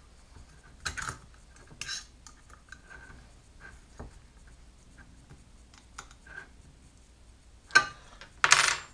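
Small metal hardware and an Allen wrench being handled at an aluminium plate: scattered light clicks and clinks, with a louder metal clatter near the end.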